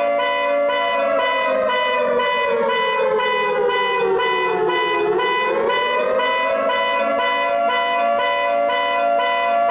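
Synthesized EAS-style emergency alert alarm: a steady two-note tone with fast pulsing beeps over it, and a siren tone that slides slowly down for about five seconds, then swoops back up.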